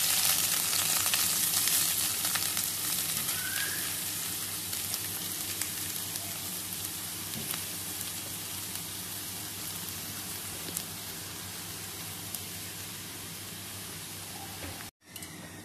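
Cabbage mixed with grated coconut and spices hitting hot coconut oil with mustard seeds, dry red chillies and curry leaves, sizzling loudly at first and slowly dying down as it fries. The sound cuts off suddenly near the end.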